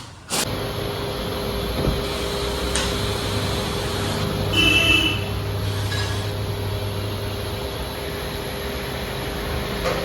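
Steady mechanical hum with a constant tone running through it, and a short electronic beep about halfway through.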